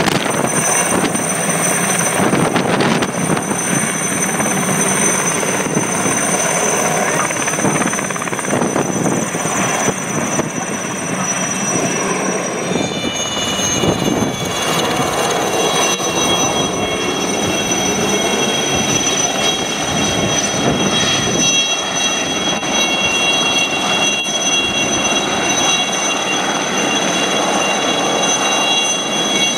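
Aérospatiale SA 315B Lama helicopters, loud: the whine of the Turbomeca Artouste turboshaft held as steady high tones over heavy rotor and engine noise. About 13 seconds in the whine drops to a lower set of tones, from a Lama hovering with a Bambi water bucket slung beneath it.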